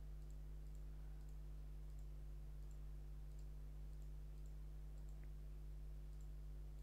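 Faint computer mouse clicks, a few every second and unevenly spaced, over a steady low electrical hum.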